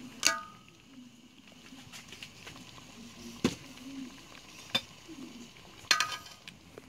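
A metal spoon clinking and scraping against a rice cooker's metal inner pot while stirring a stew, over faint sizzling. There are a few sharp, briefly ringing clinks, the loudest right at the start and near the end.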